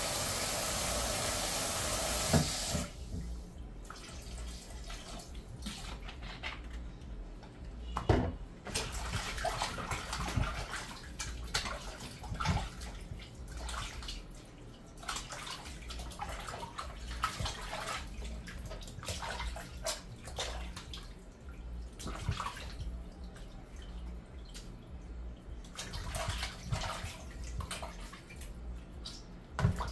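Water runs steadily into a stainless steel sink and stops about three seconds in. After that, raw chicken is washed by hand in a plastic bowl of water and vinegar, with irregular splashing, sloshing and small knocks.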